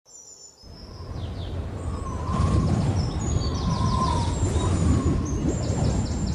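Birds chirping in quick series of short, high, falling notes over a low rushing noise that swells up during the first two seconds.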